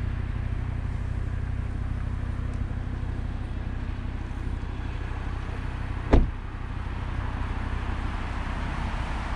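Audi RS3's five-cylinder engine idling steadily, and about six seconds in the driver's door shuts with one sharp thud.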